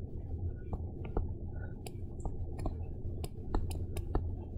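A stylus tapping and stroking on a tablet screen while handwriting a word: a run of light, irregular ticks over a low steady hum.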